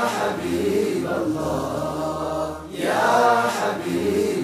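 A group of men singing an Islamic nasheed into microphones, chanting together in long held notes that swell twice.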